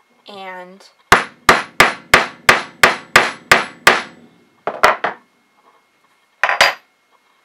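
Rubber mallet striking the steel rod of a hand grommet setter, nine sharp even blows at about three a second, driving the rod down to flare a 5mm metal grommet over its washer into the bottom anvil. A few separate, lighter knocks follow near the middle and end.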